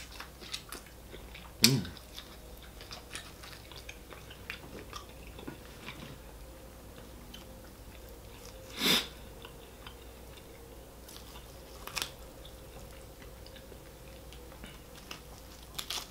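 Close-up eating sounds: chewing lobster meat and fingers picking apart a lobster tail shell, with faint crackles and a few sharp cracks. The loudest crack is about two seconds in, and a longer crack comes about nine seconds in.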